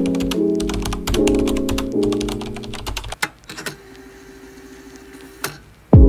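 Computer-keyboard typing sound effect, a quick run of key clicks, over background music with held chords. Both die down about three seconds in, and a sharp hit near the end brings in louder music.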